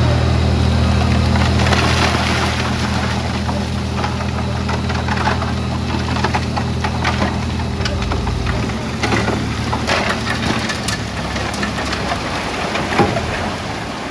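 Bulldozer's diesel engine running steadily under load, with irregular cracks and knocks of stone and debris being pushed. The engine note eases a little about halfway through.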